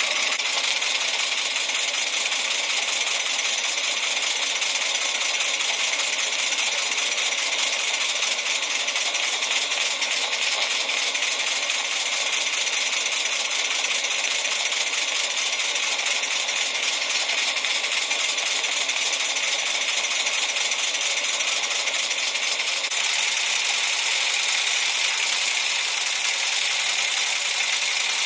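PM Research No. 7 model steam engine running steadily on steam: a fast, even patter of exhaust beats and light mechanical rattle over a continuous hiss of steam.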